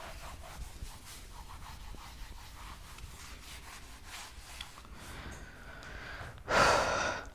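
Whiteboard duster wiping marker writing off a whiteboard: soft, repeated rubbing strokes. A short, louder rush of noise comes near the end.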